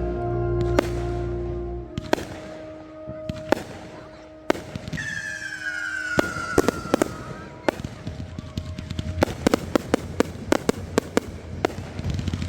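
Fireworks going off: single sharp bangs a second or so apart, a whistle that slowly falls in pitch about five seconds in, then rapid crackling from about nine seconds on. Music plays underneath at the start and fades after a couple of seconds.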